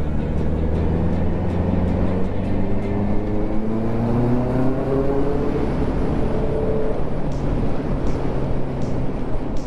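Honda CB650R's inline-four engine under acceleration. Its pitch rises steadily from about two seconds in, holds high until about seven seconds, then eases off.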